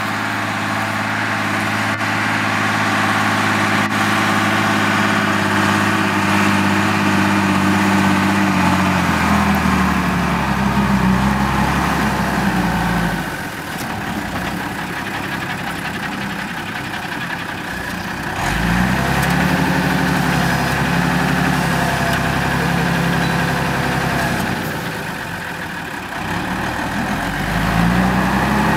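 Mercedes-Benz Unimog 406's six-cylinder diesel engine working a plough. Its note sags and then drops off about a third of the way in, picks up again past the middle, drops once more, and climbs back near the end as the truck slows at the field edge and moves off again.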